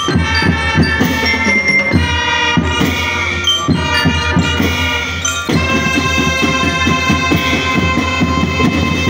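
Marching drum band playing: brass horns sounding sustained chords over a steady beat of snare and bass drums.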